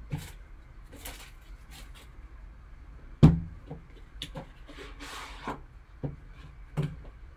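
A sealed trading card box being handled and opened: several knocks of cardboard against the table, the loudest about three seconds in. Around the middle, a rubbing, rustling slide as the inner tin comes out of the outer box.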